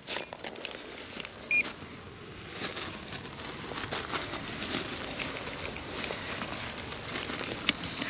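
A clump of soil being crumbled apart by hand, with a crackling, rustling noise and small clicks. A short electronic beep sounds about one and a half seconds in, from a metal-detecting pinpointer.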